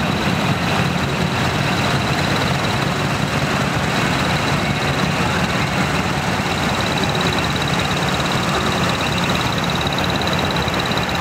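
Decorated kei truck's engine idling steadily and loudly close by.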